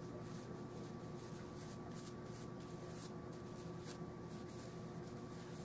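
Faint, irregular scratching strokes of a toothbrush scrubbing solvent into the grooves of an SKS rifle's gas piston.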